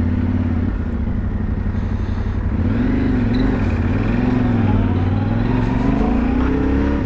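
Yamaha Ténéré 700's parallel-twin engine under way on the road. Its pitch rises and falls a few times about halfway through, then climbs steadily near the end. It is a new engine being run in, kept under about 6,000 rpm.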